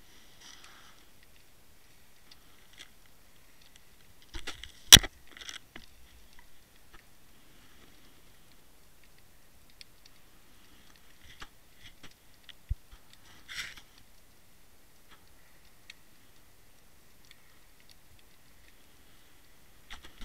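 Underwater sound heard through a camera housing resting on a sandy bottom: faint crackling with scattered clicks. One sharp, loud click comes about five seconds in, and a few smaller clicks come near the middle.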